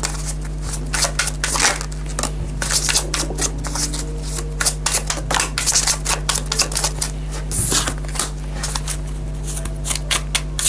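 A deck of tarot cards being shuffled by hand: a fast, irregular run of soft card clicks and riffles, over a steady low hum.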